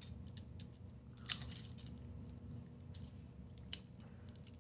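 Faint plastic clicks and taps from a small Transformers toy figure being handled and its parts fitted together, with one sharper click a little over a second in.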